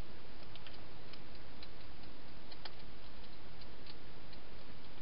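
A hedgehog crunching dry food: small, irregular clicks over a steady hiss.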